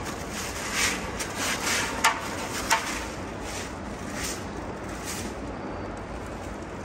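Packaging rustling and swishing as a long running board is slid out of its wrapping, in several short strokes, with two light clicks about two and three seconds in. A steady low background hum runs throughout.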